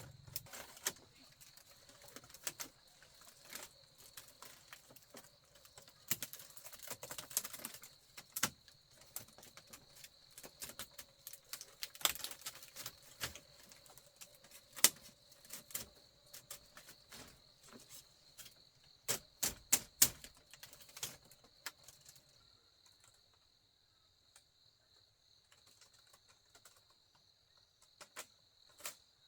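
Irregular clicks and knocks of bamboo being handled and worked by hand, some sharp and loud, over a steady high insect drone. The knocking mostly stops a little past two-thirds of the way through, leaving the insect drone with a few scattered taps.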